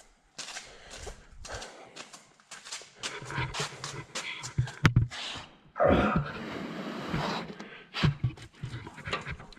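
A man breathing hard in short, uneven breaths, with a drawn-out falling grunt about six seconds in, as he strains to lift a heavy part.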